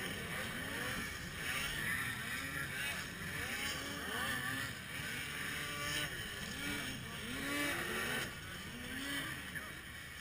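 Several two-stroke racing snowmobiles revving hard as they race over the jumps. Their engine pitch rises and falls again and again in overlapping sweeps, over a steady hiss.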